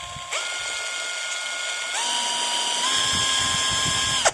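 XTitan cordless impact wrench running free with no load, its motor whine stepping up in pitch in stages as the variable-speed trigger is pressed harder. It gets louder about halfway through, then stops abruptly when the trigger is released near the end.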